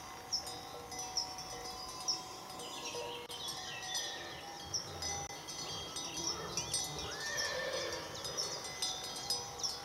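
Bells on the collars of grazing horses, clanking and ringing in an irregular jangle. Several bells sound at once, each with its own ringing pitch.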